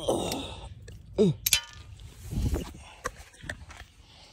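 Metal hand tools clinking and clanging as sockets are picked out of a socket set. There is one bright ringing clang about one and a half seconds in, followed by a few lighter clicks.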